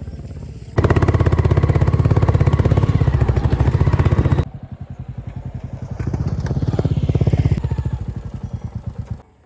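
A vehicle engine running with a fast, even pulse: it comes in loud about a second in, drops suddenly to a lower level, swells again and dies away near the end.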